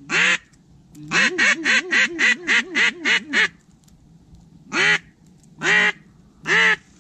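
Duck call blown in loud quacks: a single quack, a quick even run of about nine quacks, then three single quacks spaced about a second apart.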